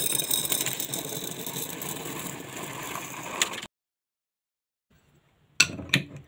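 Dried black-eyed peas pouring into a glass bottle: a dense, steady clattering rattle of beans on glass that stops about three and a half seconds in. Near the end, a few sharp clicks as a screw lid is fitted onto the bottle.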